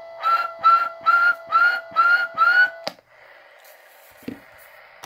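Six short whistles, about two a second, each rising slightly at its end, sounded over a steady tone that cuts off with a click about three seconds in, leaving a faint steady hiss.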